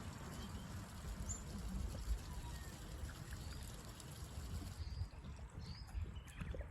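Cane Corso eating its dinner from a bowl: faint chewing and crunching clicks over a low rumble.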